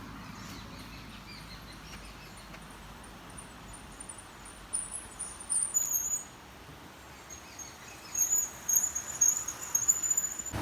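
Insects chirping in runs of short, very high chirps, once about five seconds in and again from about eight seconds, over a faint steady hiss.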